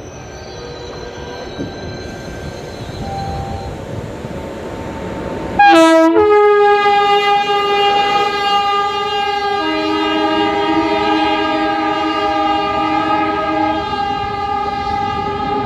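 Locomotive horn of the Kerala Express blowing one long continuous blast that starts suddenly about six seconds in, over the rumble of the train, which gets louder as it approaches. A second, lower horn note joins for about four seconds in the middle. The horn is sounded non-stop to warn passengers getting off a train on the neighbouring line.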